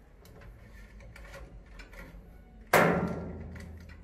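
Light clicks and rubbing as a power cord is pulled out of a water purifier's electrical compartment, then one loud knock about three-quarters of the way through that dies away over about a second.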